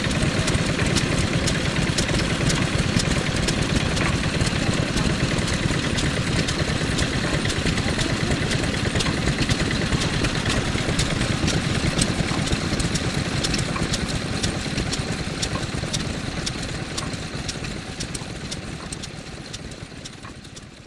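Yanmar NS40-G single-cylinder diesel engine running steadily, belted to a reduction gearbox that drives a traditional mortar and pestle, with a steady run of sharp ticks; the sound fades out over the last few seconds.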